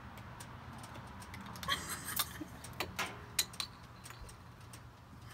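A glass bottle's metal cap being pried off with metal grill tongs: a quick run of sharp clicks and knocks from about two seconds in to past three seconds, over a low steady hum.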